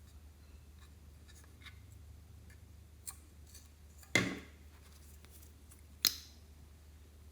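Slime being handled: faint sticky clicks, then two loud sharp pops about four and six seconds in, over a low steady hum.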